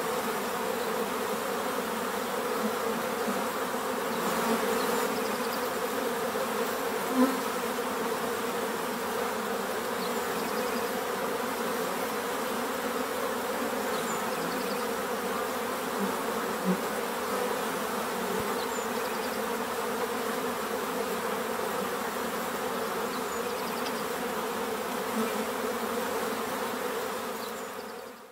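A steady buzzing hum with several level tones, insect-like, that fades out near the end.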